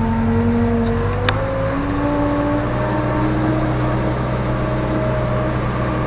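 Case 580K backhoe's four-cylinder diesel engine running, heard from inside the cab; its pitch rises about two seconds in as the engine speeds up, then holds steady. A single brief click sounds a little past one second.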